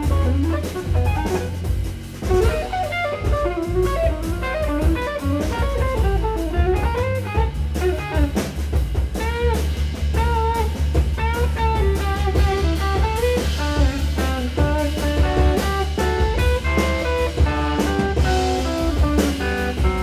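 Live jazz quartet: an electric guitar, a semi-hollow-body, plays a lead line with bent notes over bass and a drum kit with cymbals. The guitar line grows faster and busier near the end.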